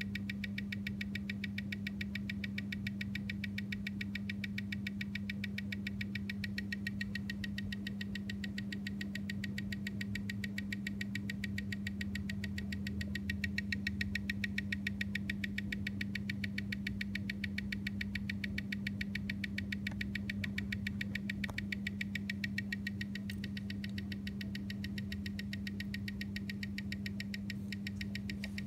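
Omega calibre 8500 watch movement ticking at 25,200 beats per hour, seven even ticks a second, amplified by a timegrapher over a steady hum. The movement is running on rate, about 0 s/d with about 350° amplitude and 0.2 ms beat error.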